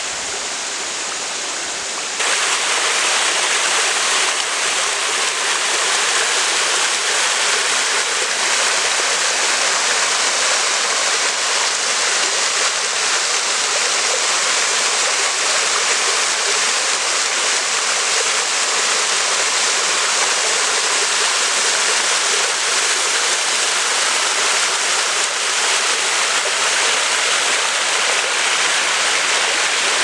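Water of a rocky jungle waterfall cascading and splashing over boulders: a steady rushing that gets louder about two seconds in.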